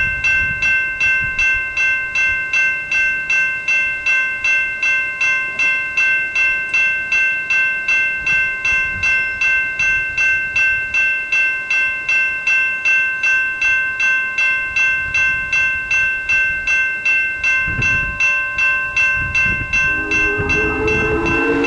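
Railroad grade crossing bell ringing in rapid, steady strokes, about two and a half a second. Near the end a steam locomotive's chime whistle starts sounding under it as the train approaches.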